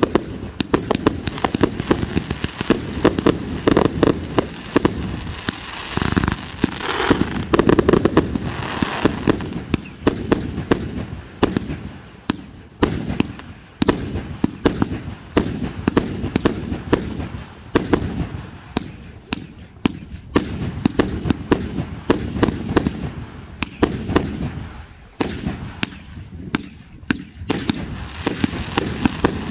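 Fireworks going off: a rapid, continuous barrage of bangs and crackling, densest and loudest in the first nine seconds or so, then thinning into more spaced-out reports with crackle between them.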